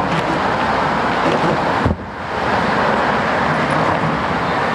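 Steady rushing noise of road traffic and wind on the microphone, with one dull thump about two seconds in.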